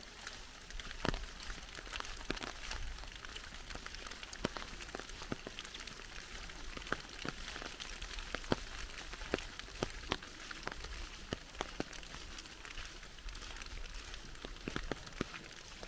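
Rain falling in a forest, a steady hiss with single nearby drops tapping at irregular intervals.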